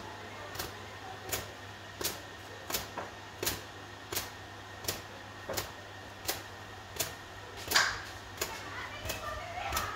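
A twisted towel slapping against long wet hair to dry it, in sharp, regular strokes about one every 0.7 seconds, the loudest a little before the end.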